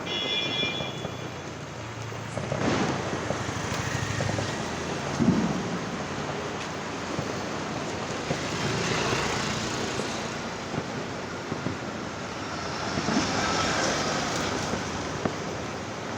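Diwali firecrackers and fireworks going off, with distant booms and bangs over a continuous rumbling, crackling din; the loudest bang comes about five seconds in.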